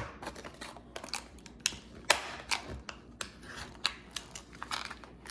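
Irregular light clicks and short scrapes of a Victorinox Swiss Army knife being handled in the hands.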